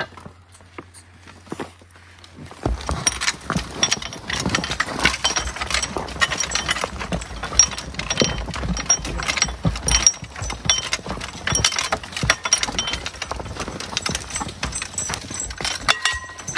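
A Belgian draft horse team on the move, starting a few seconds in: irregular hoof steps and knocks with rattling, jingling harness and chains.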